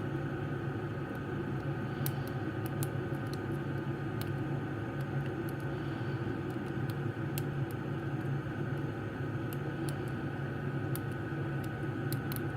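Scattered light, sharp clicks of a steel hook pick working the pin stacks of a small Assa padlock under tension, over a steady background hum.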